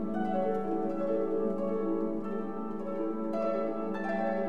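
Instrumental music: plucked string notes over held chords, with a new chord coming in about three seconds in.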